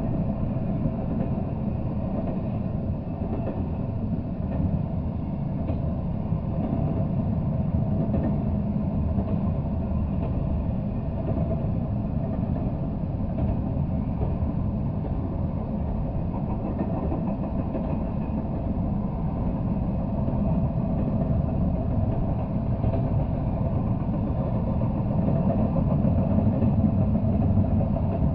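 Double-stack intermodal freight train rolling past: a steady low rumble of wheels on rail, with a faint hum running through it.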